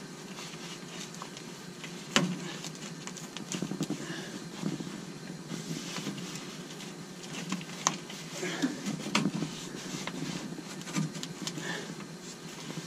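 Scattered clicks, rustles and scrapes of a replacement air filter being pushed and worked into a ceiling fan coil unit by gloved hands, over a steady low hum.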